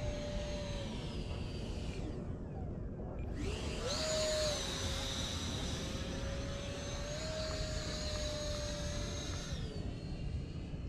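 Electric motor of a 3D-printed Mirage 2000 RC jet whining high overhead. The power drops off about two seconds in, comes back up with a rising whine about a second and a half later, and eases off again near the end. A steady low rush of wind on the microphone lies underneath.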